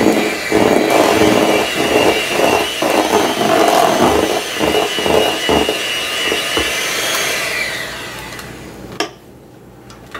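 Electric hand mixer running, beating a cream cheese and whipped-topping filling in a stainless steel bowl, its steady whine mixed with the beaters clattering against the bowl. About 8 s in, the motor winds down with a falling whine and stops. A single sharp knock follows a second later.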